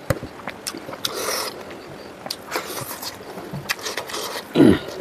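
Close-miked eating sounds: wet chewing and lip smacks as smoked pork is eaten by hand, with soft clicks and the scrape of fingers pulling meat apart. A louder low-pitched mouth sound comes near the end.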